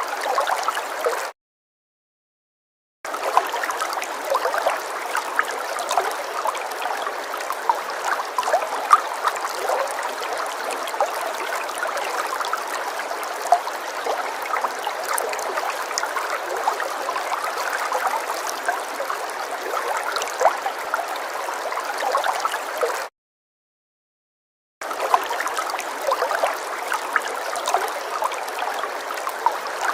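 Water falling and splashing: a steady rush with many small splashes and gurgles. It cuts to dead silence twice, for about two seconds each time: once about a second in and again about 23 seconds in.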